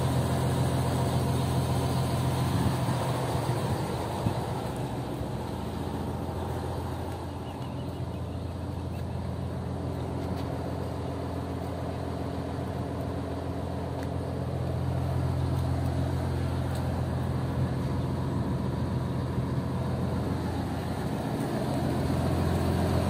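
Scania K113CL coach's rear-mounted six-cylinder diesel engine idling steadily, a little louder near the end.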